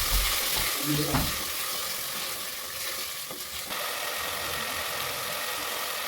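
Vegetables frying in a pot, sizzling steadily, with a couple of knocks from stirring in the first second or so.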